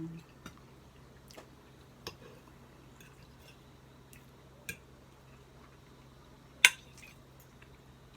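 Cutlery tapping and scraping against a plate while eating: a few sparse light clicks, with one sharper clink about two-thirds of the way through, over a faint steady hum.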